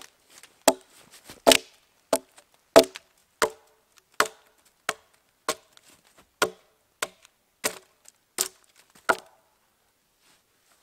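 Hatchet blade hewing the face of a wet poplar log: a steady run of sharp chops, about one every two-thirds of a second, that stops about nine seconds in.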